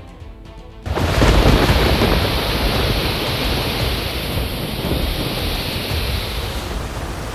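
A loud rushing noise with a heavy rumble underneath, starting suddenly about a second in and slowly easing off.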